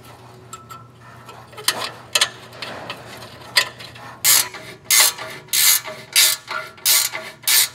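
Ratchet wrench driving the small 10 mm screws that hold the exhaust heat shield. A few scattered metal clicks and taps come first; a little over halfway through, a regular run of short clicking strokes begins, about two a second.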